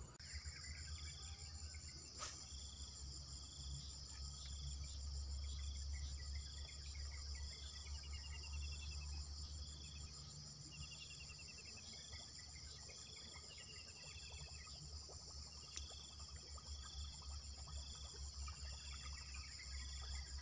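A steady chorus of crickets and other insects, with a short high chirp repeating about once a second and a few quick descending trills, over a low rumble.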